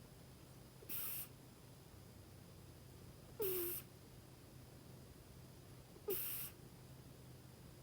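Scottish Fold cat snoring in its sleep: three short, hissy breaths, each carrying a small squeak, about every two and a half seconds.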